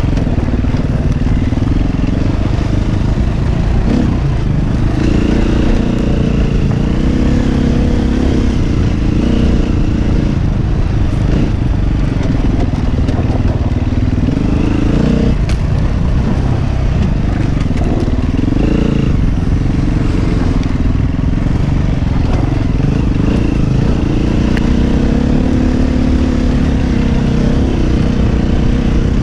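KTM 350 Six Days four-stroke single-cylinder dirt bike engine running under changing throttle, its pitch rising and falling again and again as the rider accelerates and eases off, heard from the rider's helmet.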